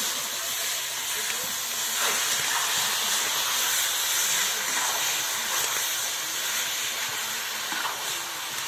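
Pork pieces sizzling steadily in hot oil in a steel wok, with the occasional scrape of a metal spatula stirring them.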